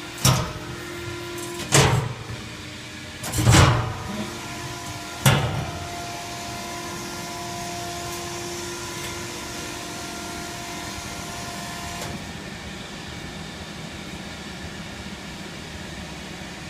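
Stainless-steel bucket lift on a Seydelman self-feed meat grinder running through its dump cycle: four loud metal clanks in the first five or so seconds over a steady machine hum, which changes about twelve seconds in.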